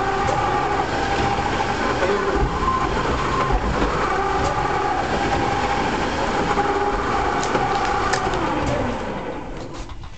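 Clay roof-tile press machine running with a steady mechanical din and a shifting whine. About nine seconds in it winds down, its whine falling in pitch as the noise drops away.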